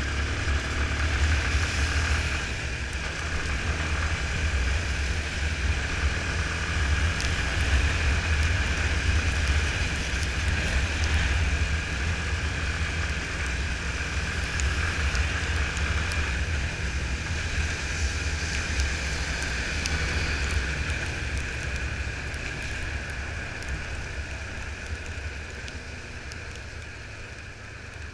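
Yamaha Fazer 250's single-cylinder engine, wind and wet-tyre noise while riding at speed, muffled through a GoPro's sealed waterproof housing. The sound is a deep, steady rumble that gets quieter over the last several seconds.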